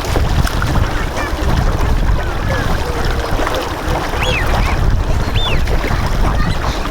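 Wind rumbling on the microphone, with a few faint calls from Bewick's swans on the water, about four and five and a half seconds in.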